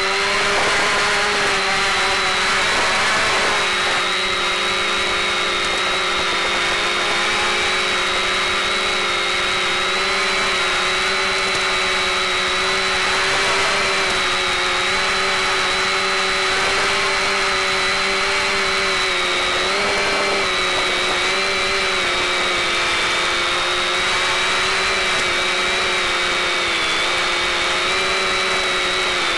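Quadcopter's brushless motors and propellers whining steadily in flight over a constant hiss, the pitch wavering slightly and dipping briefly a couple of times as the throttle shifts.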